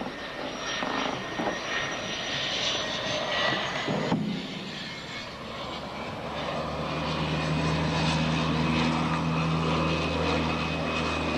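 Floatplane's propeller engine droning as it flies low past. Its low engine note comes in strongly and grows louder from about six seconds in.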